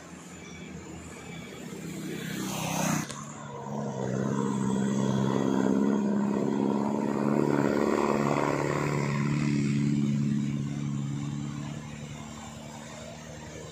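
A car passes, its noise rising over the first three seconds. Then a bus engine drones steadily as the bus climbs the hill, loudest in the middle and fading near the end.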